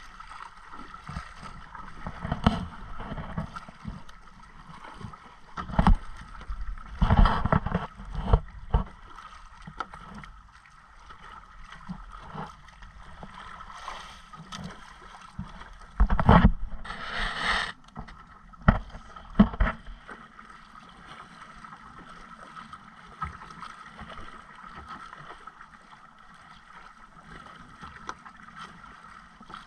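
Sea water slapping and splashing against the hull of a small outrigger boat, over a steady hum. Loud knocks and splashes come in two clusters, about a quarter and about two-thirds of the way through.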